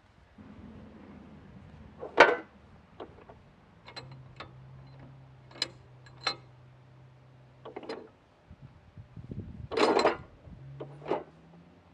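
Metal clanks and knocks from pulling the pins and dropping the mower deck off a Bolens 1050 lawn tractor: about a dozen separate impacts, the loudest about two seconds in and a cluster around ten seconds in.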